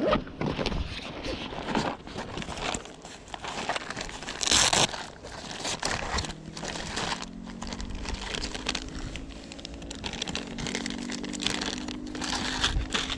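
Hands rummaging in a backpack and handling a clear zip-lock plastic bag: irregular rustling and crinkling of plastic, with a louder rustle about four and a half seconds in. A faint steady low hum sits underneath for the second half.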